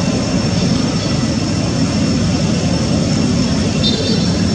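Steady low rumble of background noise with no change in level, with a brief high chirp about four seconds in.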